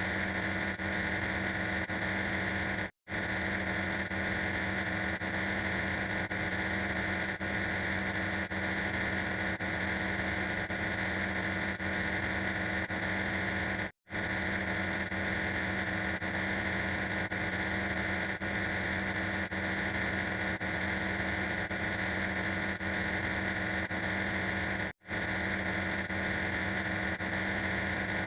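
Dense, harsh wall of noise from many sound effects layered on top of one another. It plays as a loop that cuts out for a split second about every eleven seconds.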